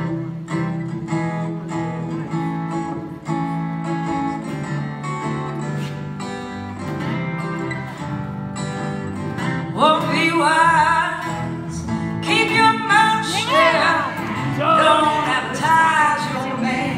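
Two acoustic guitars playing a blues intro; about ten seconds in, a woman's voice begins singing over them.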